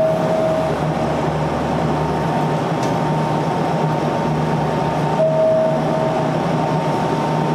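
Sanyo Electric Railway electric multiple unit running on the line: a steady rumble of wheels and running gear with a constant motor hum. Two brief higher tones come about five seconds apart, near the start and again about five seconds in.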